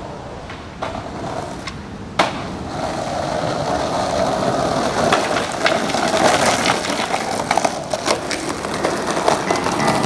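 Skateboard: a few light clacks, a sharp board impact about two seconds in, then the wheels rolling over rough ground in a growing grind with scattered knocks.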